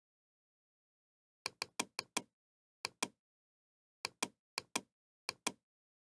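Computer mouse clicking: about thirteen short, sharp clicks, mostly in quick pairs, with a run of five about one and a half seconds in.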